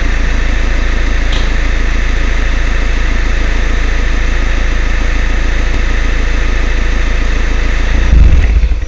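Alfa Romeo Giulietta 1.6 JTDM turbodiesel idling through a tuned exhaust (55 mm pipe, twin 71 mm silencers, DPF removed), heard right at the tailpipe as a steady low rumble. It swells briefly louder and deeper near the end.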